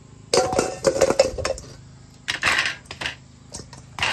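Metal tongs clinking and clattering against a wire cooling rack and a stainless steel bowl while fried chicken wings are lifted into the bowl, in two bursts of clinks: one just after the start and another past the halfway mark.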